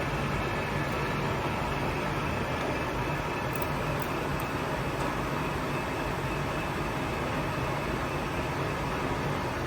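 Victor gap bed engine lathe running steadily under its 20 hp motor, headstock gearing turning the spindle with the power feed engaged: an even mechanical noise with a low hum and a higher steady whine, and a few faint ticks about four seconds in.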